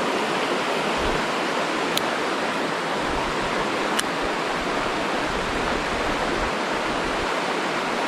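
Steady rushing of a shallow river rapids over rocks, with two sharp clicks about two seconds apart.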